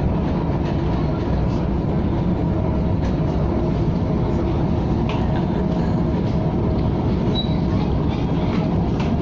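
KTM ETS electric train running: a steady, loud low-pitched rail and motor noise with faint steady tones and a few light clicks.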